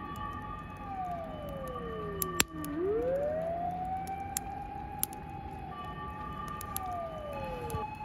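Several emergency-vehicle sirens wailing at once in the distance, answering a mountainside forest fire. One siren winds slowly down in pitch, swings back up and holds, then starts to fall again near the end, while another holds a steady higher tone. A sharp click cuts in about two and a half seconds in.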